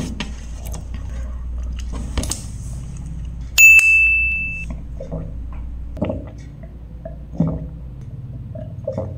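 Fingers scraping and tapping on a stainless steel tray. Then one bright metallic ding about three and a half seconds in, ringing on a single high note for about a second, and a couple of light knocks later.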